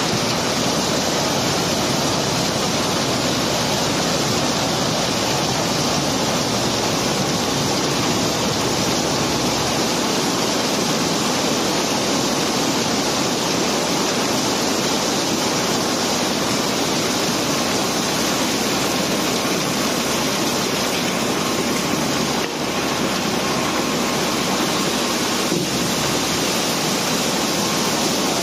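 Cobblestones and gravel pouring and sliding down out of a barge hold as it is unloaded, a steady rushing noise with a couple of brief knocks late on.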